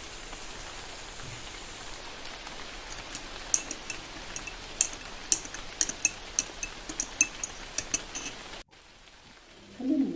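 Steady rain hiss, with a run of sharp, light clinks starting about three seconds in, like tableware. Near the end the rain cuts off abruptly.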